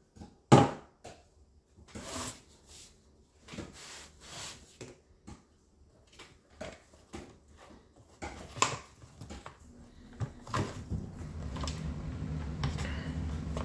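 Hard plastic chainsaw housing and rear handle clicking and knocking as they are handled and an anti-vibration mount is pressed into place, with one sharp knock just over half a second in. A steady low hum comes in at about ten seconds.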